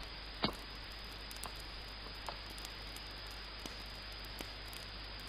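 Footsteps walking away, about one step every three-quarters of a second: the first step is sharp and the following ones grow fainter until they are lost in a steady background hiss.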